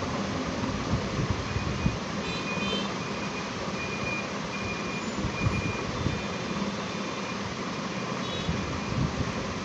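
Hot-air rework gun blowing steadily as it heats an IC to solder it onto an LED TV panel's driver board. A run of faint, short high beeps sounds in the middle.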